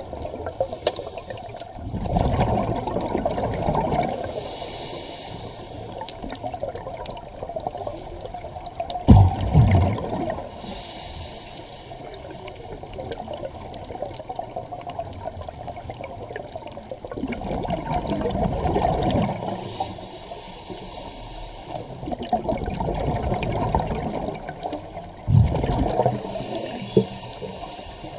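Scuba regulator breathing underwater: hissing inhalations and about four bubbling exhalations, several seconds apart.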